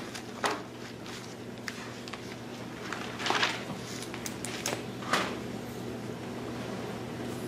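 Classroom room tone: a steady low hum with a few brief rustling sounds, about half a second, three and a half seconds and five seconds in.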